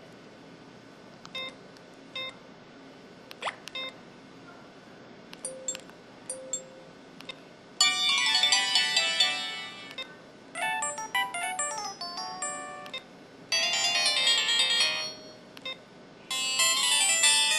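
IM-6200 mobile phone's built-in sound effects: a few short beeps and blips over the first eight seconds, then a run of four short melodic ringtone snippets, each a couple of seconds long, played one after another.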